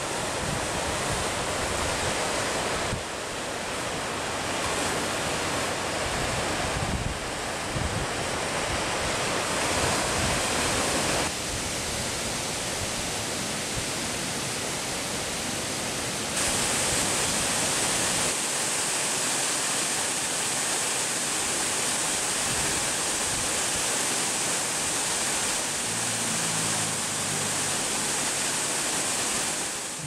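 Surf breaking and washing over a rocky shore, a steady rush of water noise with some wind on the microphone. The sound changes abruptly several times, and after the midpoint it becomes a brighter, steadier rush of water.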